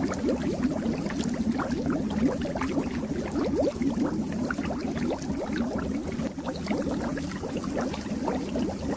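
Fish-tank water bubbling continuously: a dense stream of small bubbles, each a brief rising blip, over a steady low hum.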